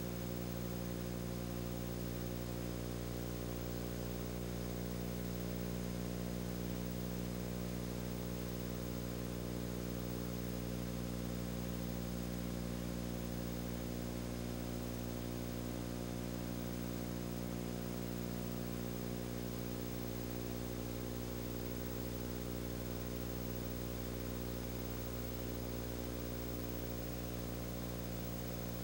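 Steady low hum made of several held tones, unchanging in pitch and level throughout.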